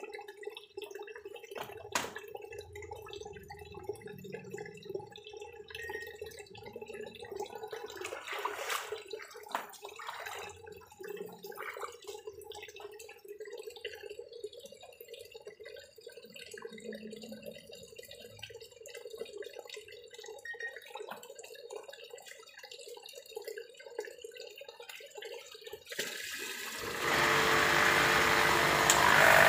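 Water trickling and dripping over a steady hum, with scattered small clicks. Near the end a motor starts up and runs much louder.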